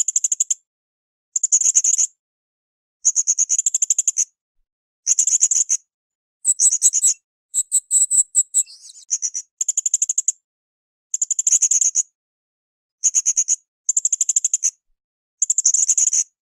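Srindit (blue-crowned hanging parrot) calling: high, rapid buzzing trills about a second long, repeated every couple of seconds, with one differently patterned, chattering phrase in the middle.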